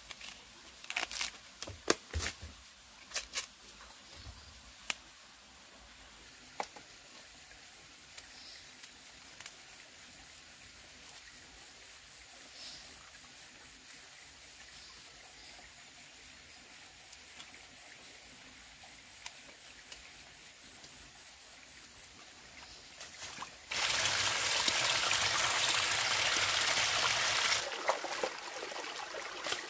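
Sharp snaps and tearing as the fibrous layers of a plant stalk are stripped by hand over the first few seconds, then quieter forest sound with a faint, high pulsing whine. About 24 seconds in, loud rushing water of a forest stream starts suddenly, dropping to a softer trickle near the end.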